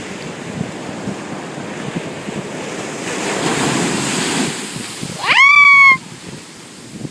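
Ocean surf washing in, swelling as a wave surges about three seconds in. About five seconds in, a person lets out a short, high-pitched shriek that rises sharply in pitch and then holds for under a second.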